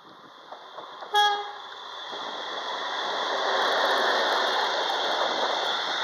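DB class 218 diesel-hydraulic locomotive giving one short horn blast about a second in. Then it and its freight wagons pass close by, and the noise of engine and wheels on the rails builds up and stays loud.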